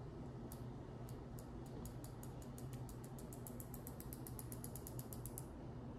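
A cartridge injection pen's dose knob clicking as it is turned: a run of small, faint ratchet clicks that come faster and faster, then stop about five and a half seconds in.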